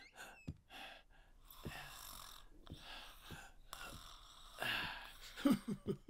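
Quiet breathy sounds, several in a row, with a few faint clicks and taps between them; a brief low vocal sound comes near the end.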